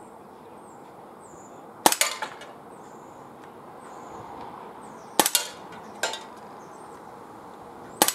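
Silenced Umarex SA10 CO2 blowback air pistol firing at tin cans over steady wind noise: sharp pops about 2, 5, 6 and 8 seconds in, the third fainter, each followed by light ticks as pellets hit and topple the cans.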